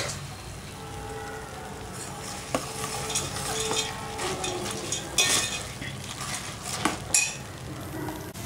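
Steel ladle stirring fried boondi into thick sugar syrup in a steel pot, with scrapes and several sharp clinks of the ladle against the pot, the loudest about five and seven seconds in.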